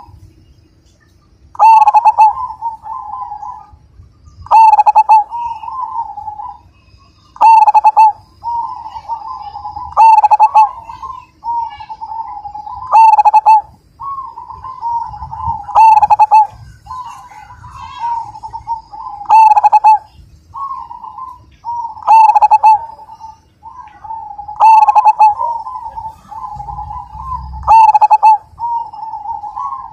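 Zebra dove (perkutut) singing its cooing song over and over, about one phrase every three seconds. Each phrase has a loud, sharp note, with softer rolling coos running on between phrases.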